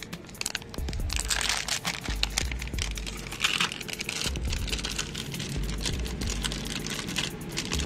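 Packaging of a new disc brake pad being torn open and crinkled, with scattered sharp crackles and rustles over background music.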